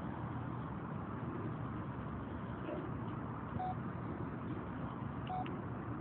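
Steady low outdoor rumble, with two short single-pitch beeps from a flip phone's keys, one about halfway through and one near the end.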